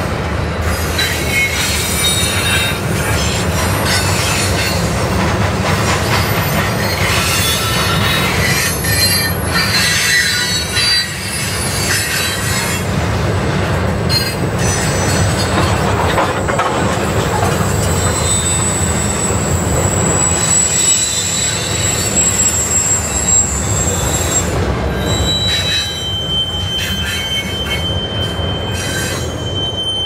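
Freight train cars rolling past with a steady low rumble and clanking, over which the steel wheels squeal against the rail. One high squeal is held for about ten seconds in the middle, and a lower one sets in near the end.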